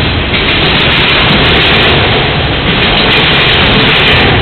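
Freight train of autorack cars rolling past close by: a loud, steady roar of steel wheels on rail, with no horn.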